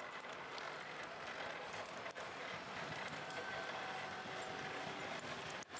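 Bicycle rolling over brick paving: steady tyre and rattle noise with light metallic jingling.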